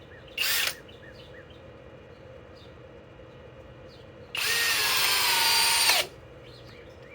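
Flex cordless compact hammer drill, set to speed 2, is blipped briefly. About four seconds in it runs for about a second and a half, its whine slowly dropping in pitch as it loads up driving a fastener, then stops.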